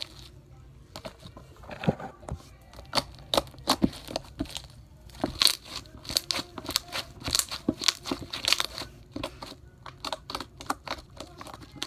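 Crunchy homemade slime being poked and squeezed, giving off irregular crackling clicks and pops, thickest in the middle.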